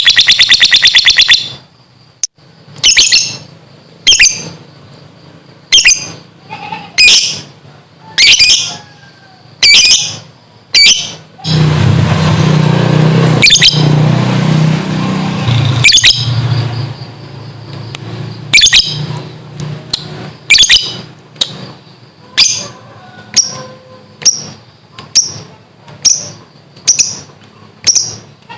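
Pet lovebird finishing its rapid chattering trill (ngekek), which stops about a second and a half in. It then gives a string of single shrill chirps about every second or two, coming quicker toward the end. A few seconds of rushing noise with a low rumble come midway.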